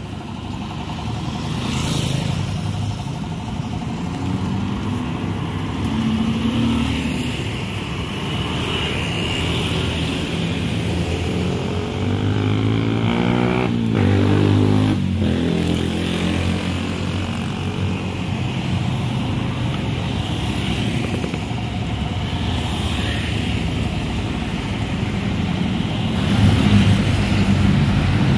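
Steady road traffic of cars and motorcycles passing along a busy road, engines running. One vehicle makes a closer pass about halfway through.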